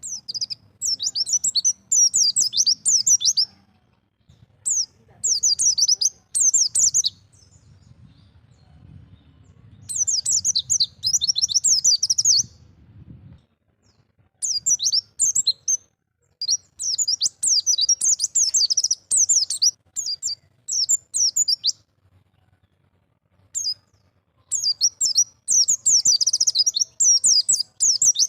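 White-eye (pleci) singing in the wild 'ngalas' style: bursts of rapid, high twittering phrases, each a second to three seconds long, separated by short pauses.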